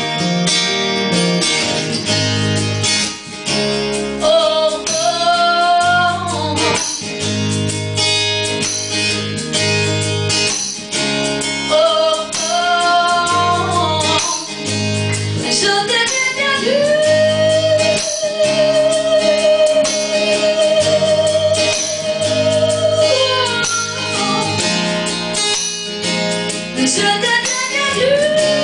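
A woman singing long held notes over a strummed acoustic guitar. The longest note, past the middle, is held for about six seconds with vibrato.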